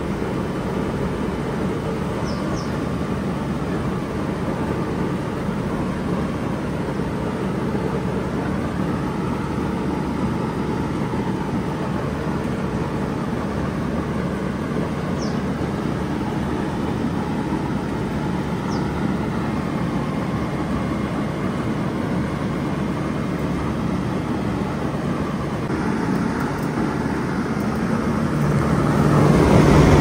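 2000 Bard 3-ton wall-hung heat pump running in heat mode: a steady fan noise over a low compressor hum. It gets louder near the end as the microphone comes up to the unit's fan grille.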